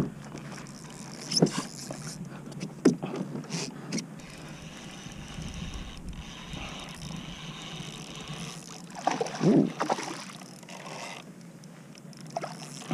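Water lapping and sloshing against a plastic kayak hull while a hooked fish is played, with a few sharp knocks from gear about one and a half, three and four seconds in. A louder rough burst comes about nine seconds in.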